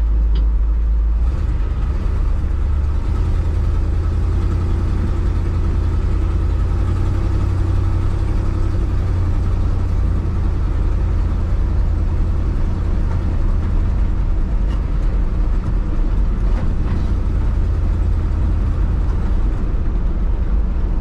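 A 1979 Ford F-250 pickup being driven at steady speed, engine and road noise heard from inside the cab as a continuous low rumble.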